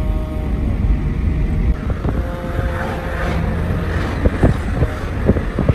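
A car driving, with a steady low engine and road rumble and a few sharp knocks and rattles in the second half.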